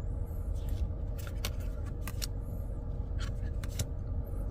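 Trading cards and their packaging being handled: a scattered run of short, sharp clicks and snaps over a steady low hum in the car's cabin.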